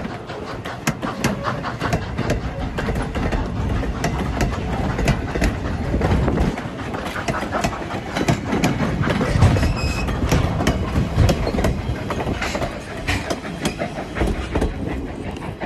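Railroad passenger coaches rolling past close by: steel wheels clicking and clattering over the rails in quick, uneven clicks, over a continuous low rumble.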